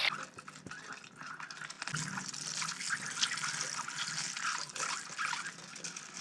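Boiled eggs sizzling in hot oil in a steel kadhai as they are shallow-fried: a steady crackling hiss, with a few light clicks of the spatula turning them.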